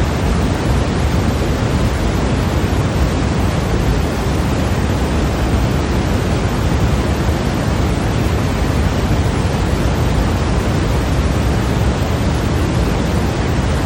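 Steady white-noise hiss of the kind played for sleep or masking, heavier in the low end. It is unchanging, with no rhythm or separate sounds.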